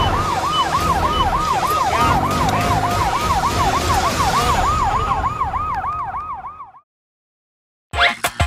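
Ambulance siren on a fast yelp, a rising-and-falling wail about three times a second, fading away about six seconds in. After a second of silence, music starts near the end.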